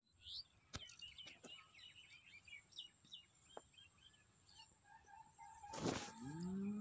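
Small birds chirping in quick bursts. Near the end comes a brief loud rush of noise, then a low drawn-out call that rises and then holds its pitch.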